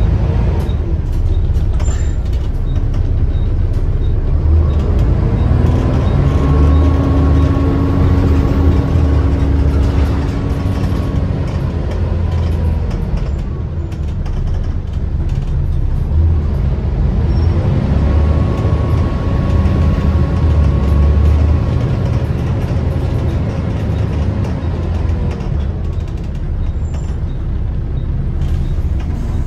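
Double-decker bus heard from on board while moving: the engine and drivetrain rise in pitch and then hold steady as it picks up speed, ease off, then do the same a second time. Short rattles and clicks from the bodywork run through it.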